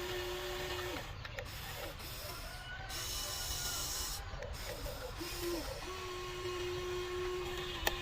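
Small electric motors of a Huina 1594 RC excavator whining in short runs as its controls are worked, the whine stopping and starting again, with a sharp click near the end.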